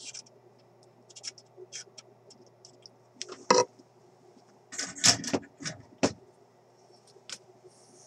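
Small clicks, taps and scrapes of tools and wire leads being handled on an old valve radio chassis while a replacement capacitor is put in place. The sharpest knocks come about three and a half seconds in and in a cluster around five to six seconds in. A faint steady low hum sits underneath.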